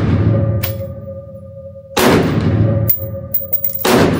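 AR-15 rifle in 5.56 firing two shots about two seconds apart, with the tail of a shot fired just before still dying away. Each shot is a sharp crack followed by a long reverberant decay with a ringing tone. A few light clicks fall between the shots.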